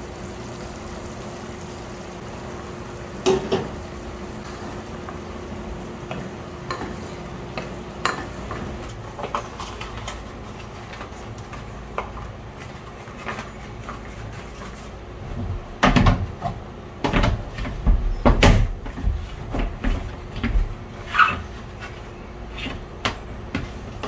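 Kitchen handling noise: a single sharp knock a few seconds in, scattered light clicks, then from about two-thirds of the way through a run of loud clattering knocks as a plastic dish rack and drip tray are moved about in a stainless-steel sink. A steady faint hum runs underneath.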